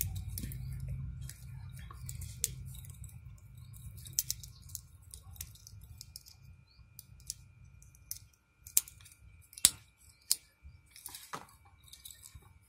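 Metal link bracelet of a Fastrack analog watch clinking as it is handled on the wrist. In the second half come a few sharp clicks as its fold-over clasp is worked and fastened. A low rumble runs under the first part.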